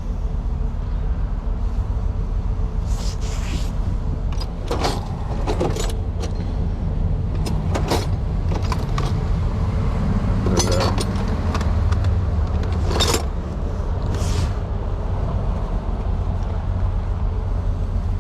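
Vehicle engine idling with a steady low drone, with scattered clicks and scrapes of hand tools being handled.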